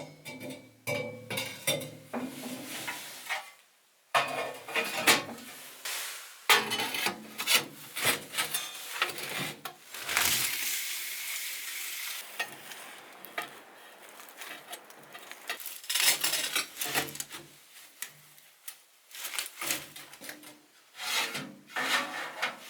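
Handling noise of a person at work: a string of knocks, clicks and scraping or rubbing sounds, with a steady hiss for about two seconds partway through.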